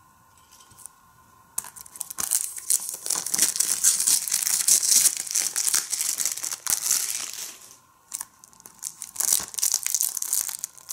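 Plastic shrink wrap being torn open and peeled off a Blu-ray case by hand, crinkling and crackling. It starts about a second and a half in, stops briefly near the end, then goes on.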